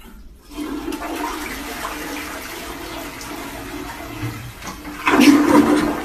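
Toilet flushing: water rushing and gurgling through the bowl, starting about half a second in and swelling to a louder gush about five seconds in.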